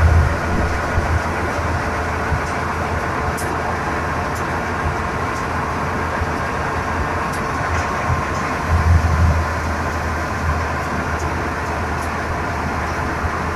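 Belt-driven stationary threshing machine (patoz) running steadily while wheat sheaves are fed into it: a continuous mechanical din with a low rumble that swells briefly at the start and again about nine seconds in.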